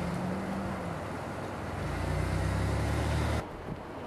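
A motor vehicle's engine hums low and steady over a constant rushing noise, growing stronger about two seconds in. Both cut off abruptly about three and a half seconds in, leaving quieter wind noise on the microphone.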